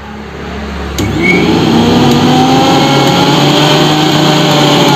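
Mixer grinder's universal motor (carbon-brush type) running with no jar fitted, switched straight onto the mains. About a second in it jumps louder and its whine rises in pitch as it speeds up, then it holds a steady high-speed whine. It is running properly now that the carbon brush that was binding in its holder has been freed.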